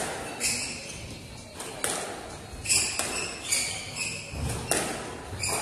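Squash rally: the ball is struck by racquets and smacks off the court walls in sharp cracks about once a second, with court shoes squeaking on the wooden floor in between.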